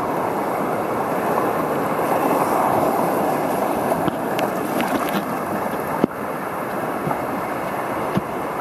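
Muffled rush of moving seawater heard by an underwater camera through its housing, swelling a couple of seconds in. A few sharp clicks come around the middle, and a single louder knock about six seconds in.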